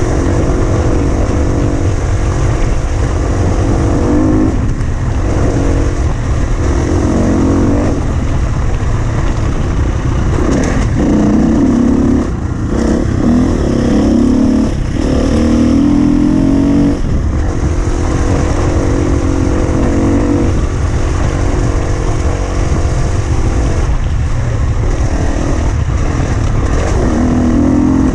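Husqvarna FE 250 enduro motorcycle's 250 cc single-cylinder four-stroke engine under way, its revs rising and falling again and again as the throttle is opened and closed, over a steady low rumble.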